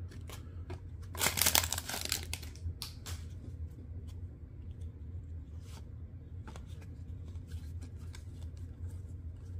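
Trading cards being handled and leafed through by hand: a rustling, tearing sound lasting about a second starts a second in, then light clicks and shuffles of card stock against card stock. A low steady hum runs underneath.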